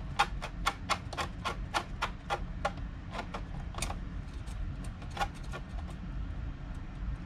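Quick, regular small clicks, about three to four a second, as fingers work a screw into a 3D-printed plastic PC case. The clicks slow and stop about four seconds in, and a few more come about five seconds in, over a low steady hum.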